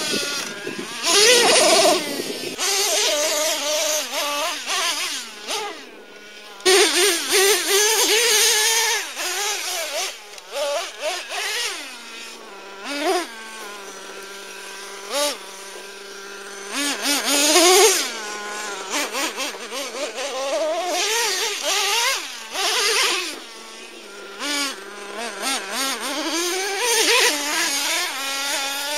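Traxxas T-Maxx's modified 3.3 nitro engine with a drilled-out resonator pipe: a high-pitched buzz that rises and falls with the throttle, revving in repeated bursts and dropping back to a steady idle for a few seconds in between.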